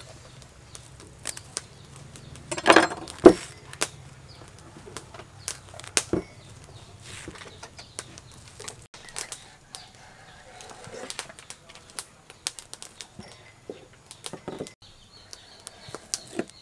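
Plastic cling film crinkling and rustling as it is pulled from the roll, spread flat and handled, with scattered small clicks and taps. The loudest crinkling comes about three seconds in, ending in a knock.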